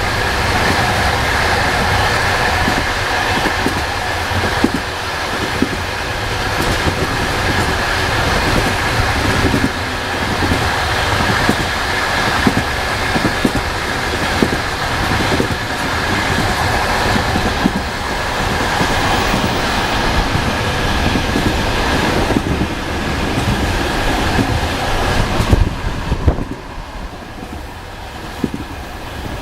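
Railway wheels clattering over rail joints: a continuous rumble with repeated clicks and a steady high whine. A few louder knocks come about 26 seconds in, and then the sound drops and turns quieter.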